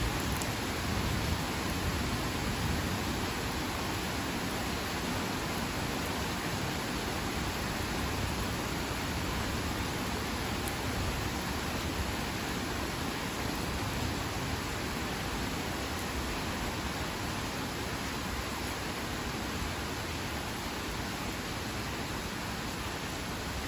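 Heavy rain falling steadily, an even hiss with no thunder in it.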